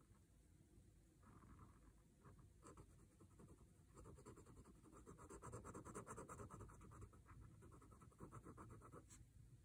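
Faint scratching of a Sakura Micron fineliner pen on a paper Zentangle tile: a rapid run of short pen strokes, busiest in the middle.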